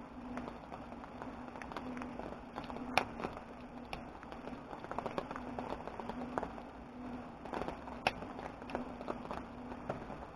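Irregular light clicks and taps, with a sharper click about three seconds in and another about eight seconds in.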